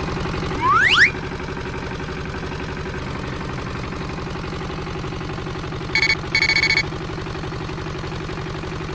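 Steady truck engine sound running with an even pulsing drone. A quick rising whistle comes just under a second in, and near six seconds there is a short beep followed by a longer one, like a horn.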